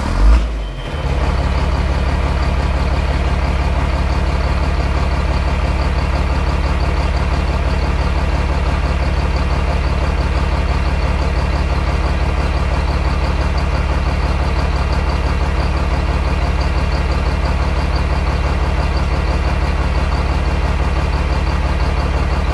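A heavy engine running steadily at one constant speed, with a brief louder surge just after the start.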